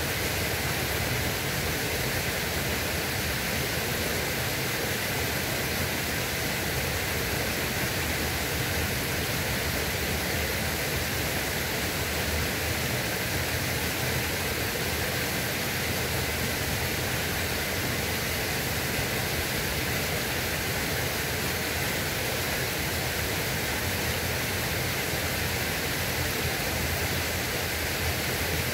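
Steady rushing noise of flowing water, even and unbroken throughout.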